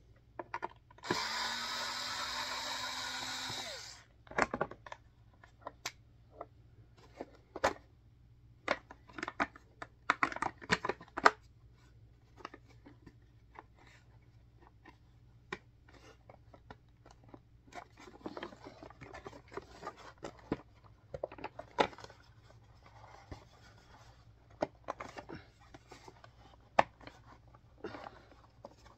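Plastic parts of a 2191 upright vacuum cleaner being handled and forced together during reassembly: scattered clicks, knocks and rubbing as a part is worked into place. About a second in there is a steady whirring noise lasting about three seconds, the loudest sound here.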